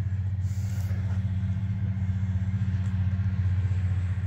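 A steady low machine hum, even and unchanging, with a brief soft hiss about half a second in.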